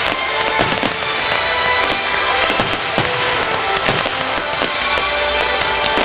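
Fireworks display: aerial shells bursting and crackling in quick succession, dozens of sharp bangs, with music playing along underneath.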